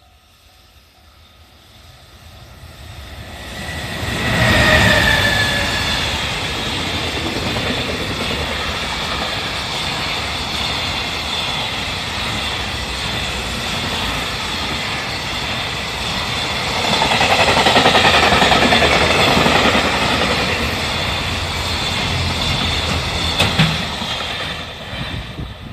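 A freight train hauled by a JR Freight EF210 electric locomotive passing close by. It grows louder as it approaches, and there is a short falling whine as the locomotive goes past about four to five seconds in. The freight wagons then roll by steadily, growing louder again for a few seconds in the middle.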